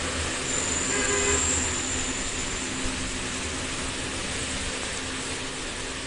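Steady background machinery: a constant low hum under an even hiss, with a faint high whine early on.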